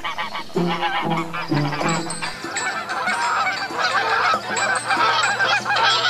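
Black swans calling: many overlapping honking calls that grow denser over the last few seconds, with a short low note repeating about twice a second at the start.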